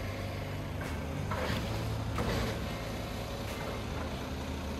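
Heavy diesel machinery running steadily, with a few knocks and rattles over the engine.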